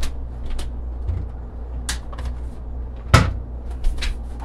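Kitchen handling sounds as salt is fetched for the sauce: a few light clicks and one sharp knock about three seconds in, over a steady low hum.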